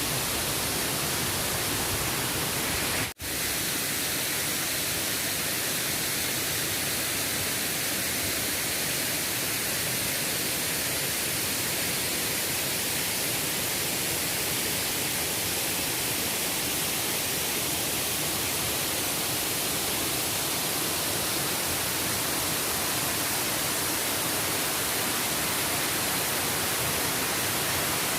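Steady rushing noise of falling water, like a waterfall, with a brief dropout about three seconds in.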